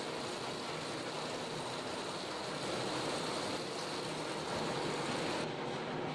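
Tap water running steadily into a stainless steel sink and splashing off a stainless steel mixer-grinder jar being rinsed under it. Near the end the sound turns duller.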